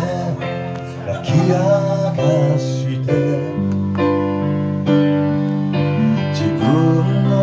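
Live band playing a song, with electric keyboard chords to the fore, guitar behind, and a singer's voice coming in at moments.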